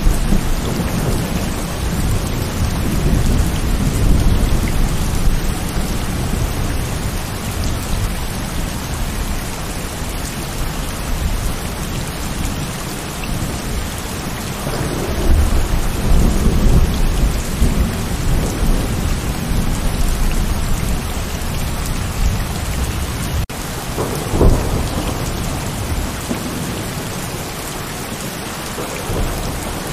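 Heavy rain falling steadily in a thunderstorm, with rolling thunder rumbling low beneath it, swelling at the start, again about halfway through and once more a few seconds later.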